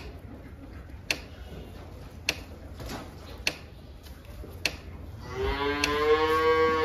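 A cow moos once, a long call of nearly two seconds starting about five seconds in. A sharp tick repeats steadily about once every second and a bit.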